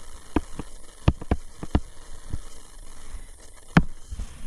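Light, irregular taps and clicks of a stylus on a writing surface as notes are handwritten, about seven in all, the loudest near the end, over a faint steady hiss.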